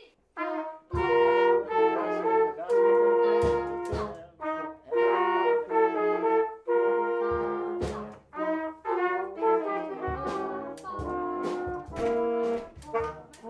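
Brass band playing a passage from rehearsal letter B, entering on the pickup: sustained brass chords in phrases broken by short rests, with sharp percussion strikes on the beats.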